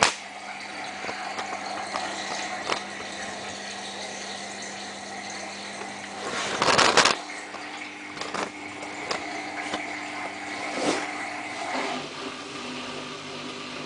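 Samsung WF8804RPA washing machine started on spin in its service test mode: a steady hum from the machine with light clicks and rattles, and a loud rush of water about halfway through. Near the end the hum shifts to a different pitch as the machine works toward spinning.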